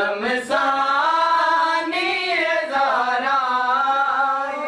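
Male voices chanting a nauha, a Shia mourning elegy sung during matam, in long drawn-out notes that waver in pitch.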